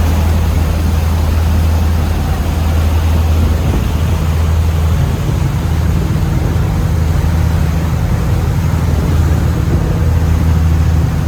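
Motorboat engine running steadily under way, a deep constant drone mixed with rushing wind and water noise.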